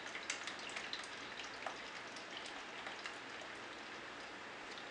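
Freshly made green vegetable juice pouring from a juicer's plastic jug into another plastic container: a faint, steady trickle with small scattered drips and splashes.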